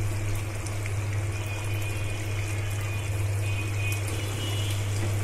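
Chicken curry simmering and sizzling in a frying pan on a gas stove: a steady hiss with small crackles over a constant low hum.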